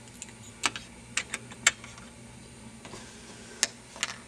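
Irregular sharp clicks and taps, about eight in all, as small die-cast scale-model parts and their plastic packaging are handled.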